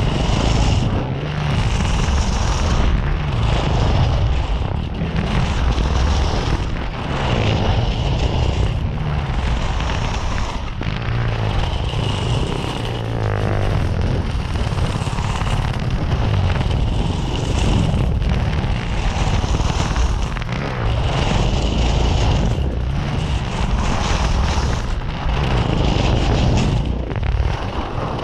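Wind buffeting the microphone over the hiss and scrape of 27 m-radius alpine skis carving down packed snow, the noise swelling and easing from turn to turn.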